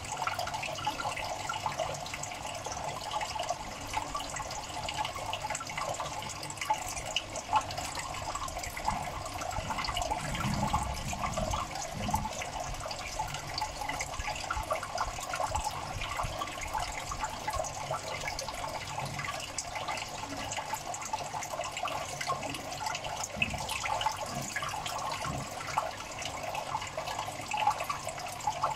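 Steady bubbling and trickling of water in a crayfish tank, dense with small crackles, with a brief low rumble about ten seconds in.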